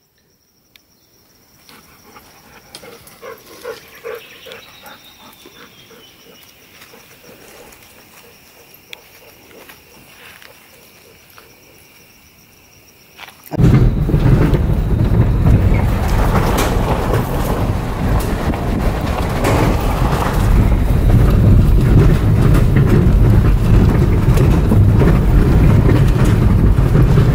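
Quiet outdoor ambience with a faint steady high tone, then, about 13 seconds in, an abrupt switch to loud, steady, low rumbling noise.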